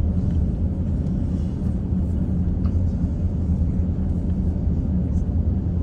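Cabin noise inside an Airbus A350-900 taxiing: a steady low rumble from its Rolls-Royce Trent XWB engines at taxi power and the wheels rolling over the taxiway. A faint click is heard about three seconds in.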